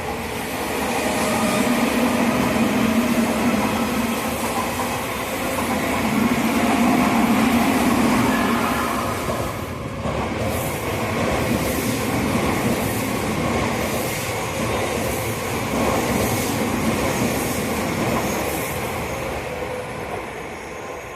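An Odakyu Odawara Line electric train passing close by at a level crossing: a loud, continuous rumble of the cars that swells and eases, with a brief dip about ten seconds in, then a regular clatter of wheels over the rail joints, a little faster than one a second.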